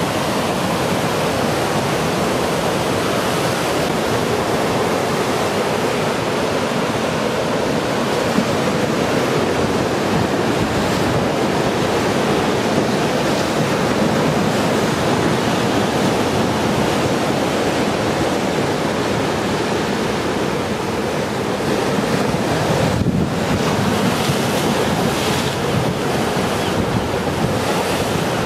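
Heavy storm-surge waves breaking and churning against a sea wall, a steady loud rush of surf. Strong wind buffets the microphone.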